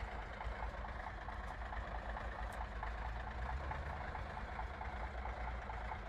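Engine of an old three-axle logging truck running steadily at low speed as the loaded truck crawls through deep mud: a steady low rumble with a faint regular ticking.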